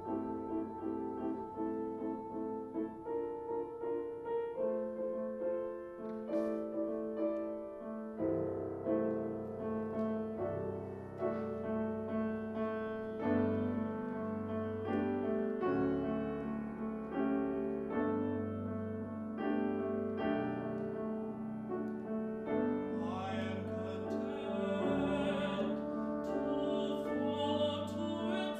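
Classical chamber music played live on a grand piano with a spirited, busy part. About three-quarters of the way through, a tenor voice comes in singing with vibrato over the piano.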